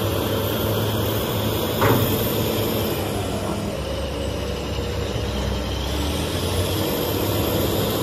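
Heavy diesel engine of a BEML BE1000 hydraulic excavator working under load as it swings and digs into iron ore fines, with a steady hum. A brief sharp sound comes about two seconds in, and the engine note grows deeper and heavier in the middle as the bucket digs.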